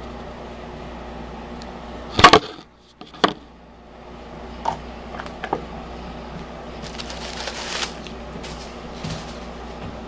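Handling noises: a loud knock as the camera is set down, then a few light clicks and a brief papery rustle as toilet paper rolls are lifted off a toilet tank lid, over a steady background hum.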